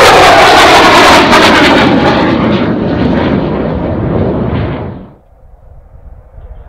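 Very loud jet noise with crackling from an F-35 Lightning II's single F135 engine at high power as it climbs away after takeoff, easing off gradually. It cuts off suddenly about five seconds in, leaving a faint, distant jet.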